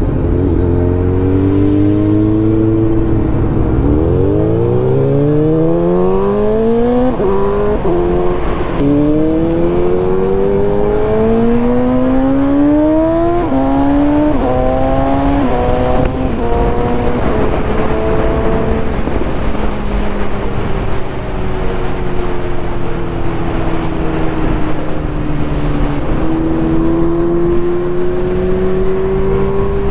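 Suzuki GSX-S750's inline-four engine with a decat exhaust under hard acceleration: the revs climb and drop sharply at quick upshifts in the first half, then jump up at a couple of downshifts around the middle. Later it cruises, the revs slowly sagging and then rising again near the end.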